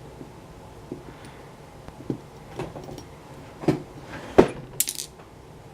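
A picked lock and its metal parts being handled: scattered small clicks and knocks. The loudest knock comes a little past four seconds in, followed by a brief bright metallic rattle.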